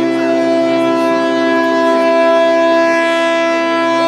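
A loud horn sounding a steady chord of several notes, held without a break or change in pitch.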